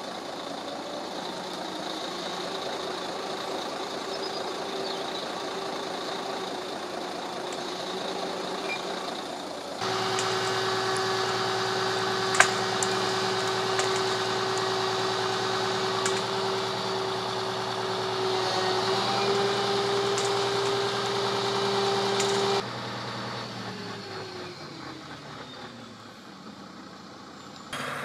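Diesel engine and winch of a truck-mounted cable yarder running steadily with a high, even whine. It turns abruptly louder about ten seconds in, drops back sharply a few seconds before the end and then fades.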